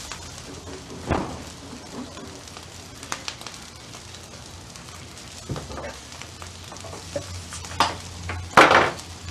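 Pre-cooked rice sizzling steadily in olive oil on a flat-top griddle. A few brief knocks sound over it, with a louder sharp one near the end.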